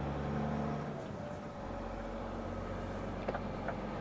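Iveco truck's diesel engine running, heard from inside the cab; its low note drops away about a second in and then settles again. Near the end the turn-signal indicator starts ticking, about two and a half ticks a second, for the left turn.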